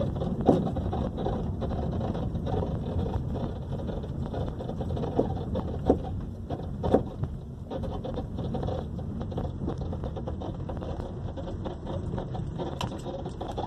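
2012 Honda Civic driving with a steady low road rumble, broken by several sharp, irregular knocks from the front suspension. The knocking is traced to a cracked front control-arm bushing and a broken front shock absorber mount.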